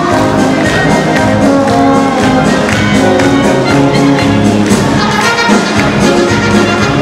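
Loud German oompah-style brass band music with trumpets and trombones over a steady beat.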